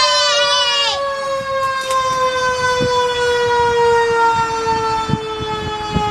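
A siren slowly winding down, one long tone falling steadily in pitch. In the first second a second, fast-wavering siren tone sounds over it.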